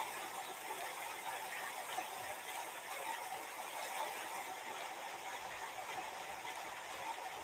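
Steady background hiss of room tone with no distinct sounds.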